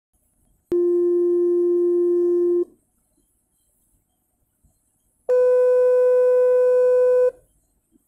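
Two steady electronic test tones from a sound-perception app, each about two seconds long and sounded in turn as grid boxes are tapped to compare pitch and loudness. The first, lower tone begins about a second in. The second, higher tone begins about five seconds in.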